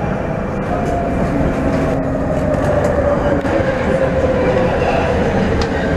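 Brussels metro train running through a station, a continuous rumble with a thin whine that slowly drops in pitch and a second, lower whine joining about a second and a half in.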